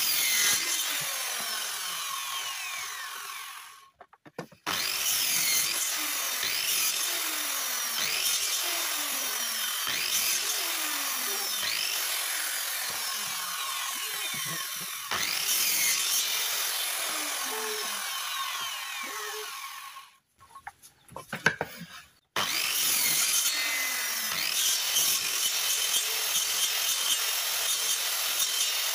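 Electric circular saw running and cutting wood, with a downward sweep in pitch repeating about every two seconds as the workpiece is fed into the blade. It cuts out briefly twice, about four seconds in and again near two-thirds of the way through.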